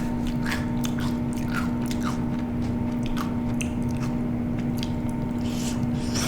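Close-miked eating: a person biting and chewing food, with scattered short mouth clicks and crunches at irregular intervals, over a steady hum.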